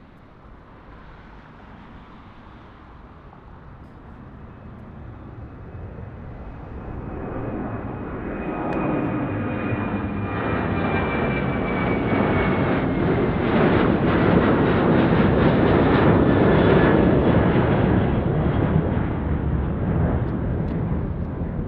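Boeing 737-900's twin CFM56-7B turbofans at takeoff power as the jet lifts off and climbs out: a rushing roar that builds for about fourteen seconds, peaks, then slowly eases. A faint high whine slides down in pitch through the loudest part.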